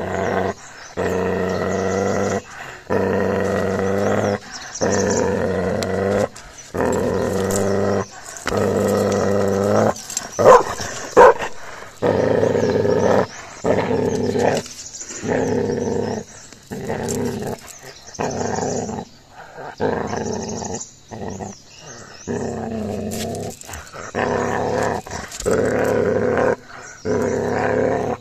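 Tibetan mastiff puppy growling over the bone it is chewing, guarding it: long growls one after another, a second or two each with short breaks between them, and two sharper, louder snarls about ten and eleven seconds in.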